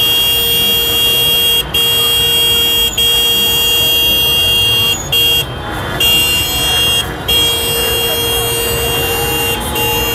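Car horns held down in long, steady blasts with short breaks every second or two, victory honking by celebrating football fans, over the noise of a crowd. Near the end a thinner tone slides in and drops slowly in pitch.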